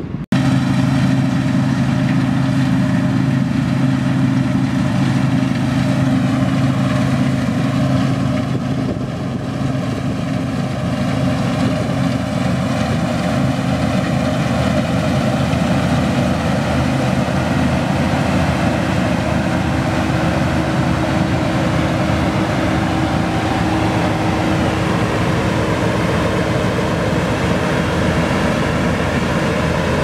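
New Holland TX32 combine harvester at work in a grain crop: a steady engine drone mixed with the rush of the threshing machinery, cutting in abruptly at the start and holding level throughout.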